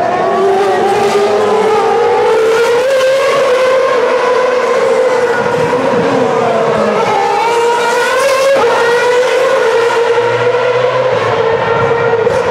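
Formula One cars' 2.4-litre V8 engines running at high revs on the circuit, more than one car at once, so that several engine notes overlap and slowly rise and fall.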